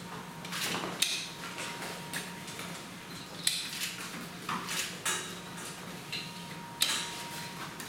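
Straps and buckles of an Escape-Mattress SOLO evacuation mattress being fastened around a patient: four sharp clicks a couple of seconds apart, with fabric and strap rustling between them. A steady low hum runs underneath.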